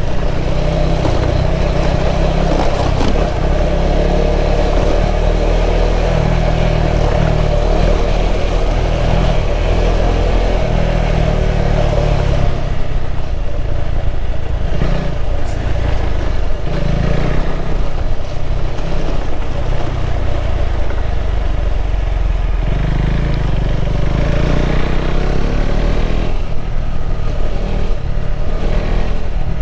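KTM 390 Adventure's single-cylinder engine running steadily at low road speed on a rough dirt track, its note changing about twelve seconds in.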